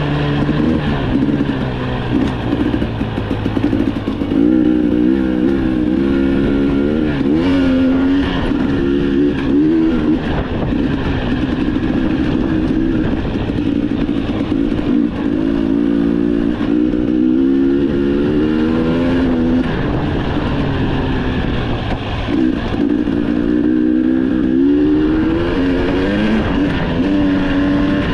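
Off-road vehicle engine running hard while driving, its revs rising and falling again and again.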